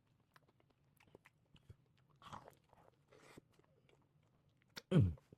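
Close-up chewing of a fried chicken sandwich: soft crunches and small wet mouth clicks, with two longer crunchy or breathy bursts midway. Near the end the eater hums a satisfied 'mm'.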